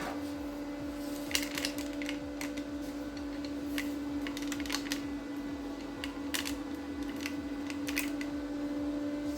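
Prime Weld MIG 180 welder running with a steady hum while its flux-core wire is fed against a block of wood to test the drive-roll tension, with scattered sharp clicks.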